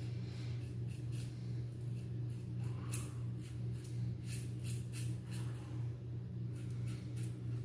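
Short, irregular scraping strokes of a safety razor cutting stubble, over a steady low hum.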